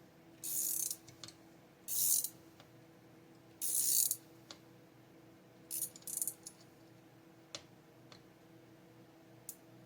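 Wrist pin installation tool being worked in short raspy bursts, about one every second and a half, then shorter clicks, as it presses the wrist pin through the piston and connecting rod bearings of a McCulloch Mac 10-10 chainsaw.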